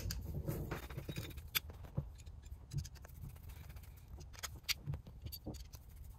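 Irregular light clicks and scrapes of small metal parts: flathead screws being driven by hand to fasten a flat mounting bracket to a manual 4WD actuator.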